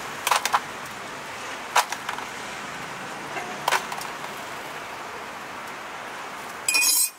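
A metal spoon clinking several times as blueberries are spooned onto a crepe, with a few sharp clicks in the first two seconds and another near the middle, over steady street background noise. Near the end there is a short, loud burst of hiss.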